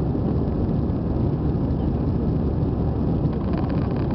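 Airbus A320 cabin noise in the climb after takeoff: a steady, low rush of engine and airflow noise heard inside the passenger cabin.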